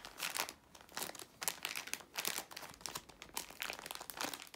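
A paper squishy stuffed with polyfill and wrapped in clear packing tape crinkles and crackles as hands fold it over and press it, in many irregular small crackles.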